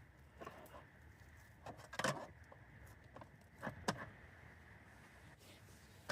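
A few sharp clinks and knocks of objects being handled; the two loudest come about two seconds apart, over a faint steady low background.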